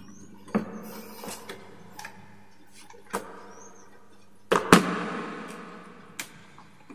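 Plastic wall-switch and socket plates being handled and set against a wooden board: a series of light clicks and knocks, with a louder clatter about four and a half seconds in and another sharp knock near the end.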